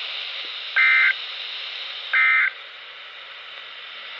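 Emergency Alert System end-of-message data bursts: the last two of three short, harsh two-tone digital squawks, about a second and a half apart, over steady static hiss. They mark the end of the alert.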